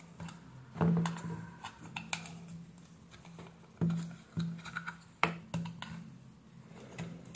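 Screwdriver and fingers working inside a plastic aquarium air pump housing: scattered clicks and knocks, the sharpest about a second in, around four seconds and past five seconds. A low tone comes and goes underneath, like quiet background music.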